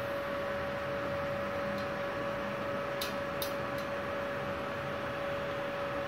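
MIG welding machine switched on and idling, not welding: a steady hum with one clear steady tone from its fan and electronics. Three faint ticks come about three seconds in.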